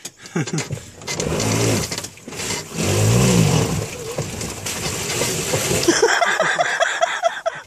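Golf cart engine revving up and back down twice over a steady rushing noise, the sound of the cart stuck in mud with its wheels spinning.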